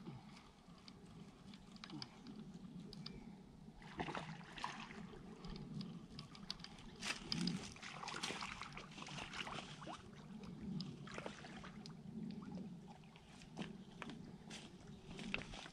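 A hooked catfish splashing at the lake surface near the bank: faint, irregular sloshes, busiest through the middle of the stretch.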